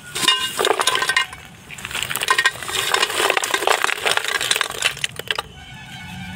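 Snail shells clattering and clinking against each other and a metal pot as a sackful of live apple snails is tipped in, in two pours with a short pause about a second and a half in. The clatter stops near the end.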